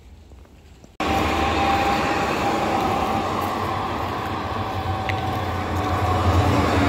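Yellow Dresden tram passing close by on street track: a steady electric whine over a low rumble of wheels on the rails. It starts abruptly about a second in, and the rumble grows louder near the end.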